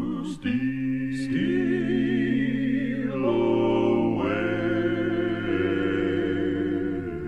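Male gospel vocal quartet (two tenors, baritone and bass) singing long held chords in close harmony with vibrato, the chord shifting every second or two, with a couple of brief 's' hisses early on.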